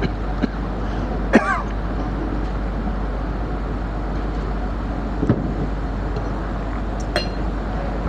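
Steady hiss with a low hum underneath. A man clears his throat about a second and a half in, and a few small knocks follow as he handles a ceramic mug and drinks, with a short clink near the end as the mug is set down.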